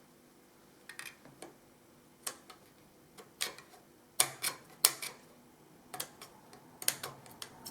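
Scissors snipping wet wallpaper, a string of irregular sharp clicks as the blades close, some in quick pairs, the loudest about halfway through.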